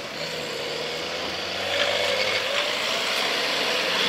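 Car engine running and revving as a car drives off, its pitch rising and falling slowly, over the noise of other cars, getting a little louder about halfway through.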